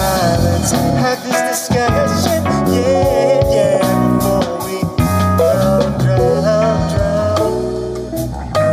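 Rock band playing: electric guitar lines with bending notes over a drum kit, with no lyrics sung.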